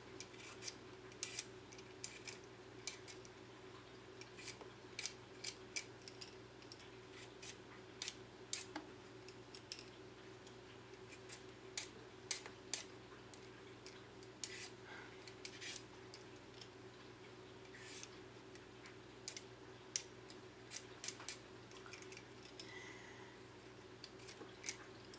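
A cucumber being peeled by hand: short, irregular scraping clicks as a blade strips the skin, over a faint steady hum.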